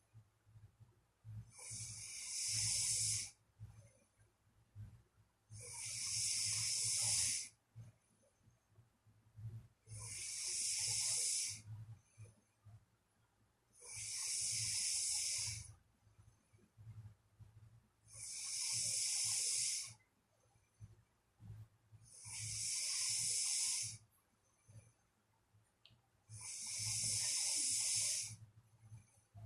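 A person snoring in sleep, with a regular breath about every four seconds, seven in all. Each breath is a hissy snore of about two seconds.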